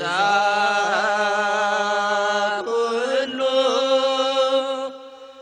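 Ethiopian Orthodox Tewahedo hymn chanted in long held notes with small wavering ornaments. It moves to a new pitch about halfway through and drops away briefly near the end, as for a breath.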